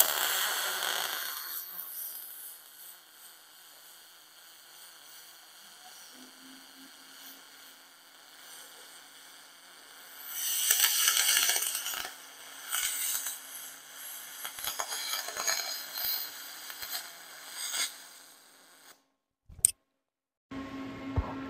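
Aluminium MIG welding with a handheld spool gun: the arc hisses and crackles in broken runs, loudest in the first second or two and again from about halfway, then stops. Near the end there is a click, then a low steady hum.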